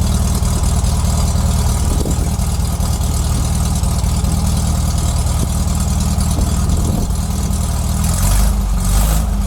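1969 Volkswagen Karmann Ghia's air-cooled flat-four engine idling steadily on its freshly cleaned and rebuilt carburetor. A louder rush of rumble and hiss comes near the end.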